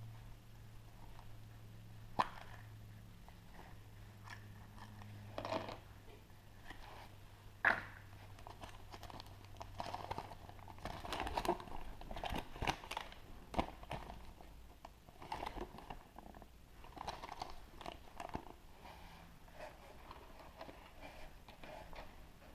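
A chocolate surprise egg being opened by hand: crinkling and cracking, with sharp single clicks about 2 and 8 seconds in and denser crackling in the middle.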